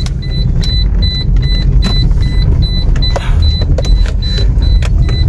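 Turn-signal indicator ticking about three times a second inside a Toyota Corolla GLi's cabin, over a loud, steady low rumble of the car driving. A few sharp knocks break in along the way.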